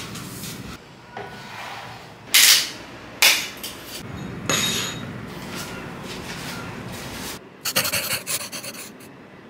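Small hand brush sweeping across a wooden floor into a dustpan: soft scratchy brushing, with two louder strokes a couple of seconds in and another about halfway. Near the end comes a brief run of rapid rattling clicks.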